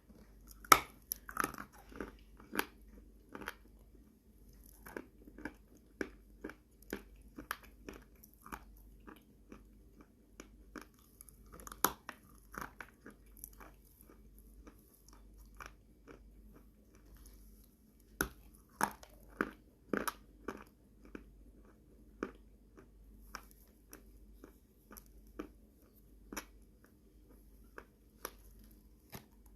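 Dry chunks of Orsk edible clay being bitten and chewed up close: sharp, crisp crunches in an irregular run, the loudest about a second in.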